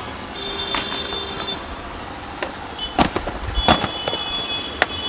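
Plastic jewellery display boxes clacking and knocking as they are handled, several sharp clacks with the loudest about three seconds in, over a steady market background din with a couple of thin high tones.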